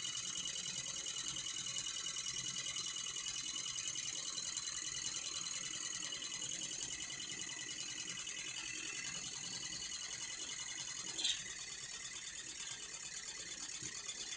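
Retrol R01 1/12-scale Rider Ericsson hot air engine running very fast, its small crank and linkages making a rapid, even mechanical clatter. A single short click sounds about eleven seconds in.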